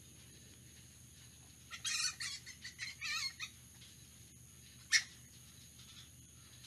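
Flying fox (fruit bat) calling: a quick series of squawking calls lasting about two seconds, then a single short call a little later.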